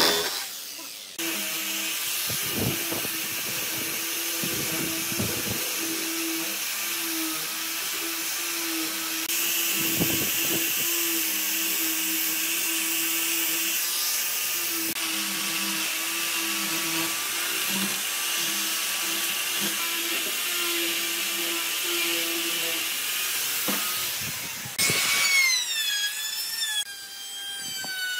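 Handheld electric power tools working pine. For most of the time a small high-speed motor tool runs steadily under load, a rotary tool with a sanding drum grinding into the wood. Near the end a trim router's whine slides in pitch as it cuts.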